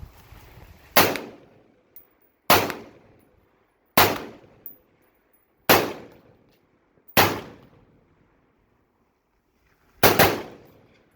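Dark Storm Industries DS15 Typhoon AR-15-style rifle fired semi-automatically: five single shots about a second and a half apart, then after a pause a final pair in quick succession, each with a sharp crack and a short echoing tail.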